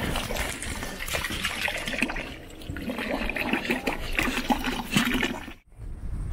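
Water running and splashing at a boot-washing station as muddy hiking boots are rinsed. It cuts off abruptly near the end.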